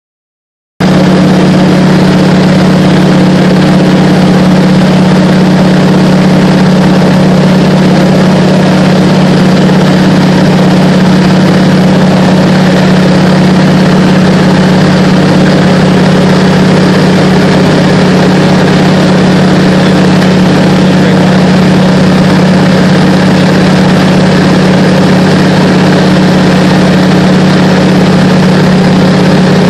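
de Havilland Canada DHC-2 Beaver seaplane's engine and propeller droning steadily in cruising flight, heard from inside the cabin, with a strong low hum over a wash of airflow noise.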